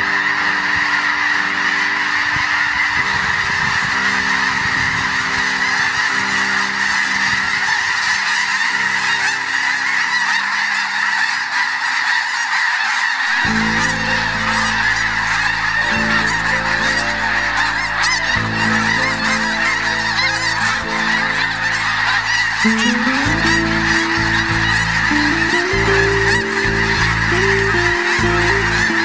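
A large flock of snow geese calling in flight: a dense, unbroken chorus of honking from hundreds of birds at once.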